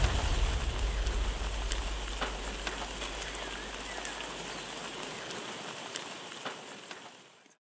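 Steady hiss of light rain with scattered drip-like ticks, under the low end of the orchestral score dying away over the first few seconds. All sound cuts off shortly before the end.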